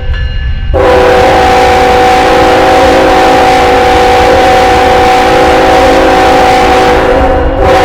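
Multi-chime train air horn sounding one long, steady blast of about seven seconds. It starts about a second in, right after a previous blast ends, and cuts off near the end as another begins. A low rumble runs underneath.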